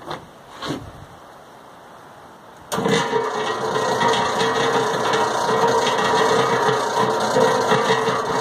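A homemade sand muller built on a cement mixer is switched on about three seconds in and runs steadily, its drum turning with the roller assembly test-clamped in place. It gives a steady hum over a rough mechanical noise, after two soft knocks near the start.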